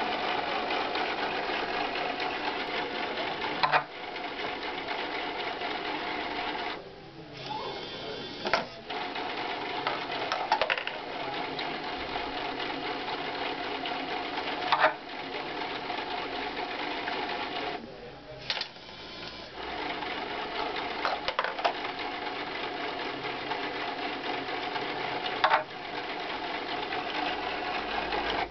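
Small electric motor of a homemade ping-pong ball sorting machine whirring steadily as it drives plastic gears, with a sharp click every few seconds. The whir drops away twice, for about a second and a half each time.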